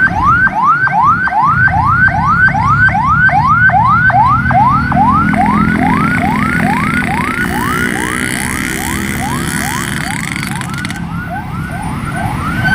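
A medium bus's 'telolet toa' siren-style horn sounding a fast, repeated rising whoop, about three a second, slowing slightly in the second half. The bus engine rumbles underneath.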